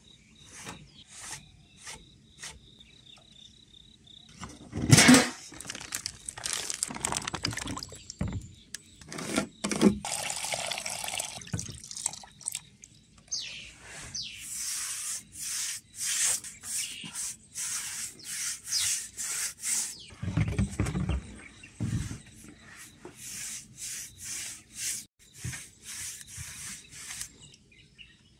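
A brush splashing and swishing in water and stain in quick repeated strokes, about two a second through the second half, with a loud knock about five seconds in.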